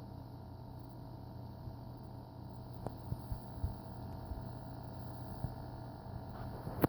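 EVGA SuperNova 1000 W G1 power supply buzzing steadily, a low hum with faint higher tones, the coil-whine buzz the unit is making. A few faint clicks in the middle and a sharp click near the end.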